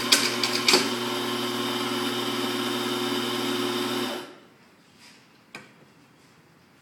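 Electric coffee grinder motor running with a steady whirr, then switching off suddenly about four seconds in, followed by a faint knock.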